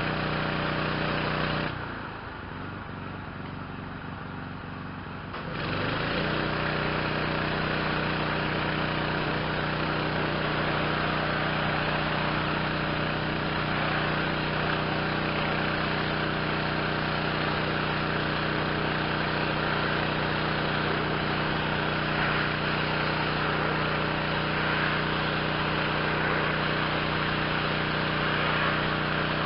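Yamaha PW4040 pressure washer's 357cc Yamaha MZ360 engine running, with the hiss of the high-pressure spray over it. About two seconds in the spray stops and the whole sound drops for a few seconds, the engine note wavering, then the spray and the full sound come back for the rest.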